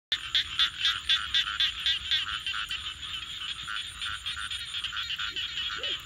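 A chorus of frogs croaking in a fast, even run of about four calls a second, loudest over the first two seconds. A steady high-pitched trill runs above them.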